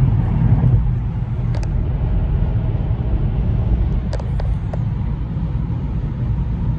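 Steady low road and engine rumble inside a Kia's cabin as the car cruises at about 61 mph on adaptive cruise control and lane-keeping assist, with a few faint small ticks.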